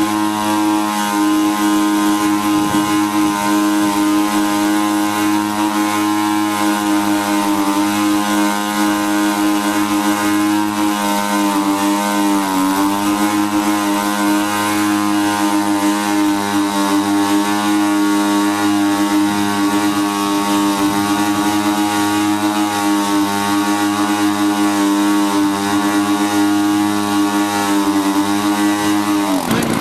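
Twin petrol engines of a large radio-controlled B-25 Mitchell model held at high revs with propellers spinning, during the model's first engine run while their revs are checked with a tachometer to make sure they match. The note holds steady, with a brief dip in pitch about twelve seconds in, then drops sharply as the throttle is pulled back near the end.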